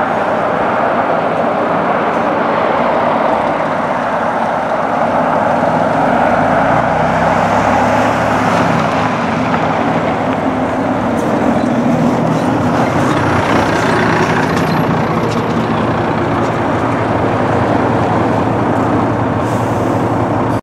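Diesel coach bus engine running as the bus drives up and turns past on a snowy road, its engine note getting louder about six seconds in.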